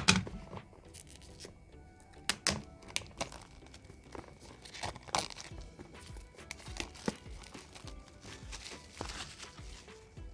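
Thin plastic wrapping film being slit and peeled off a small cardboard box, with irregular crinkling and tearing and a few sharp crackles, the loudest right at the start.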